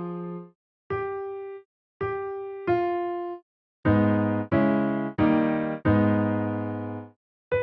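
Electric piano playing one note at a time with short silent gaps, then four full chords in quick succession, the last held and left to die away; a new single note starts right at the end. The notes and chords are played as a hearing test.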